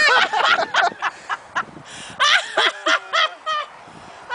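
Laughter in quick repeated bursts: one run at the start and another about two seconds in.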